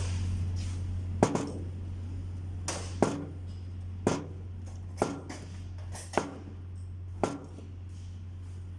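Hammer striking metal: six sharp blows about a second apart, each with a short ring, over a steady low hum.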